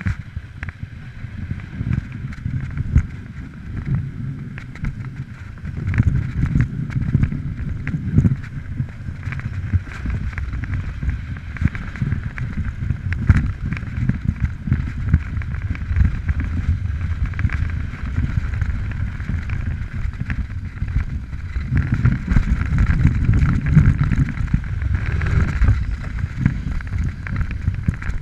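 Snowboard sliding down groomed piste, its base and edges hissing and scraping over the corduroy snow, with a low wind rumble on the camera microphone that swells and fades.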